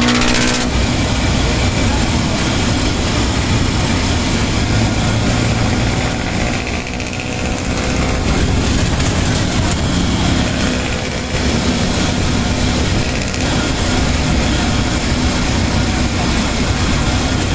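Steady engine and road noise from aboard a moving vehicle in traffic, briefly quieter twice near the middle.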